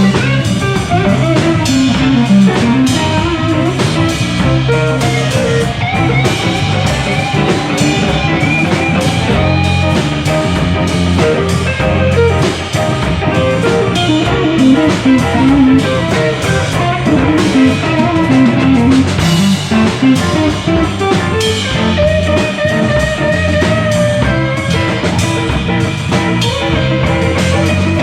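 Live blues band playing an instrumental break: a guitar plays a melodic lead over bass and a drum kit.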